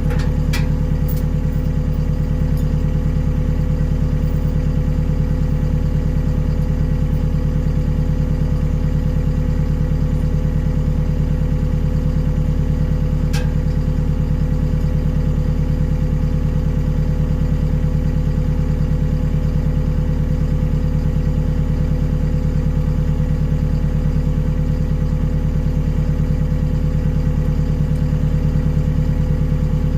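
Skid steer engine running at a steady speed with no revving, with a couple of faint clicks, one right at the start and one about halfway through.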